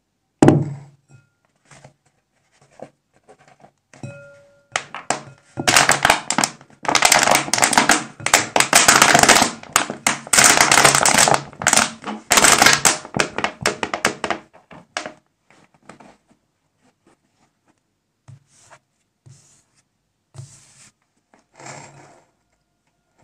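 A glass bowl set down on a wooden table with a knock, then dish-soap foam squeezed out of a plastic bottle into the bowl, with dense crackly sputtering in bursts for about ten seconds. A few soft knocks of handling near the end.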